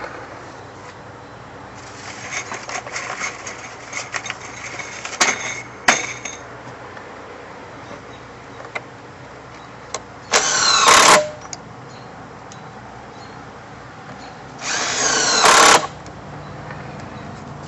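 Power drill running in two short bursts of about a second each, near the middle and again near the end, its pitch sliding as it works, with scattered light clicks and knocks of parts being handled before them.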